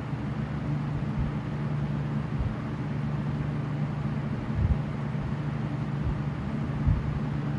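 A pair of Lasko-made 20-inch box fans (a Galaxy 3723 and a Lasko with a Marco motor) running together: a steady rush of air over a low motor hum. A couple of brief low thumps from air buffeting the microphone come a little past halfway and again near the end.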